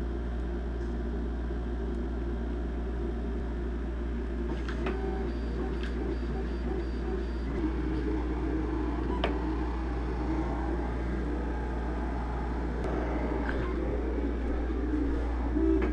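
Desktop vinyl cutter running with a steady motor hum that wavers in pitch, with a few light clicks.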